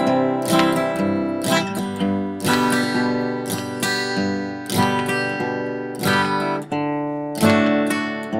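Background music: acoustic guitar strummed chords.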